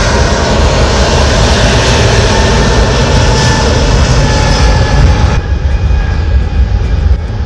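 Jet engines of a twin-engine widebody airliner at high thrust on the runway, a loud steady rumble with a faint whine in it. The sound turns duller about five seconds in as the plane moves on down the runway.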